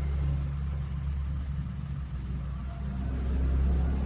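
RC crane truck running with a steady low engine-like rumble while its winch lowers a toy tugboat on the hook. The rumble swells slightly about three seconds in.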